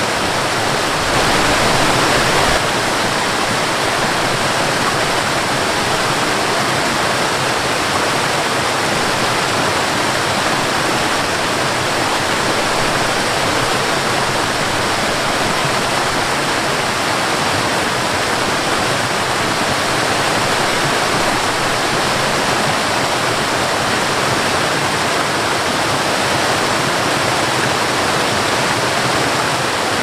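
Waterfall cascading over rocks: a steady rushing of falling water, swelling slightly for a moment about a second in.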